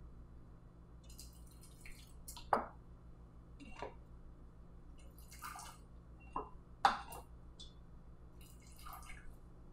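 Hot balsamic vinegar syrup poured from a saucepan through a small mesh strainer and canning funnel into jars, in a few short, faint trickles and drips.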